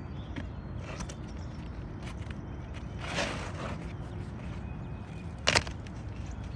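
Hand work on an asphalt roof shingle: a scraping rustle about three seconds in, then a single sharp knock about five and a half seconds in, the loudest sound, over steady low background noise.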